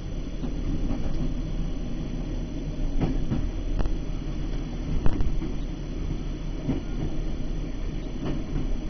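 Diesel passenger train running along the line, heard from the driving cab: a steady low rumble with occasional knocks from the wheels on the track, the sharpest about five seconds in.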